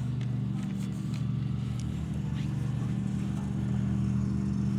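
An engine idling steadily, a low even hum with a fast regular pulse, with a few faint light clicks over it.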